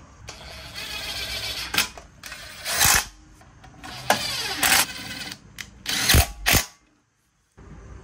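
Cordless drill/driver running in several short bursts, each winding up and slowing down, as it spins bolts in on a small engine. The sound cuts off sharply near the end.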